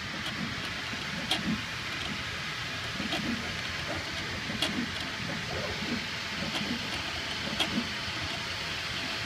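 Kongsberg flatbed digital cutting table running as it cuts shapes from a magnet sheet: a steady hiss with a low mechanical rumble, and sharp clicks every second or two as the cutting head works.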